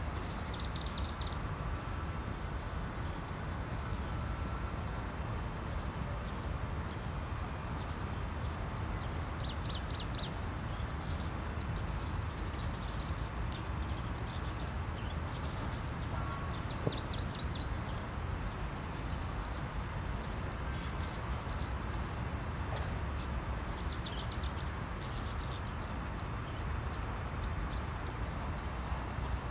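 Steady low rumble and hiss of outdoor background noise, with a bird's short, rapid trills breaking in every several seconds.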